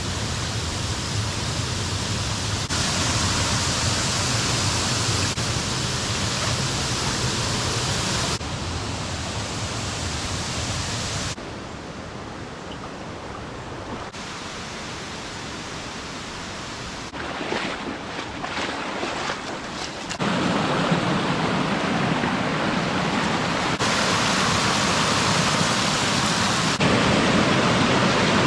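Waterfall rushing, a dense steady roar of falling water that changes abruptly in loudness several times, quieter for a stretch in the middle and fullest near the end.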